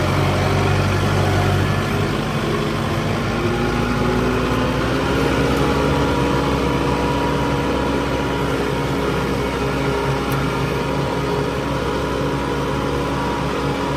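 Tractor engine running steadily, its speed rising a few seconds in and then holding at the higher pitch.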